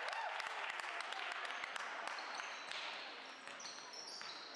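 Basketball bouncing on a hardwood gym court during play: scattered sharp knocks in a large hall, with a few short high squeaks near the end.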